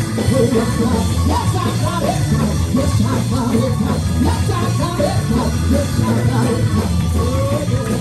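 Loud live church worship music with a heavy, steady bass, and many voices singing along.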